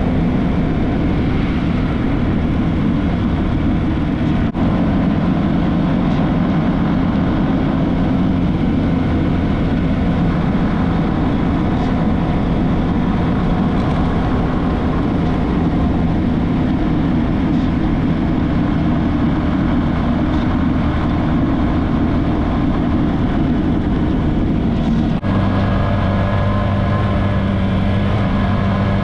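Motorcycle engine running on the road under a steady rush of noise. There are two brief breaks, about four seconds in and near the end. After the second break the engine settles into a steady, even hum.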